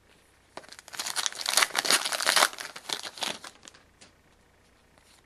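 Crinkling and tearing of a trading card pack's wrapper as it is ripped open, dense crackling for about three seconds that fades out near the end.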